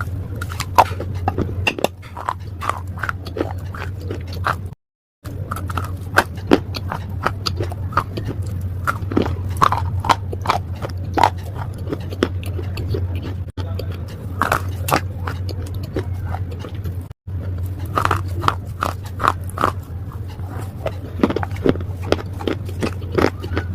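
Pieces of slate being bitten and chewed: many sharp, irregular crunches and cracks over a steady low hum, with two brief cuts to silence.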